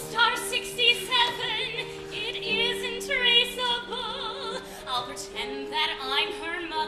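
A woman singing a show tune with a wide vibrato over held accompaniment chords.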